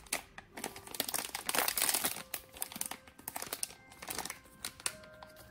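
Foil blind-box pouch crinkling and crackling as hands squeeze and handle it, in dense irregular bursts.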